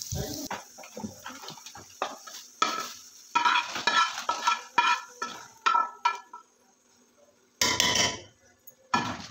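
Metal slotted spoon scraping and clinking against a metal frying pan as fried carrots and raisins are scraped out of it, with hot oil sizzling briefly at the start. The clinks come thick and fast, ringing a little; after a short pause, two louder scraping rasps come near the end.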